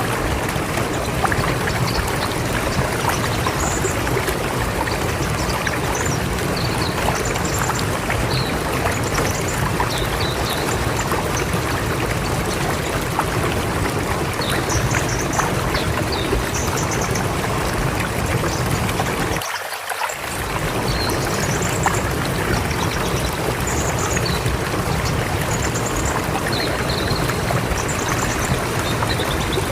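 River water flowing steadily, a continuous rushing noise, with short high bird chirps scattered over it. The low part of the rush drops out for a moment about two-thirds of the way through.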